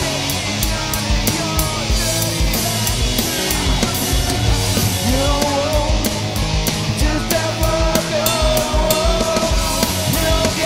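Loud rock song with guitars, a drum kit and bass, and a wavering sung vocal line over a steady drum beat.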